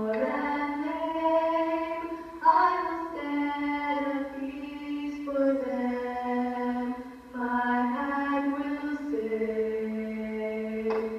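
Girls' voices singing a slow song in long held notes, played back through a television's speaker.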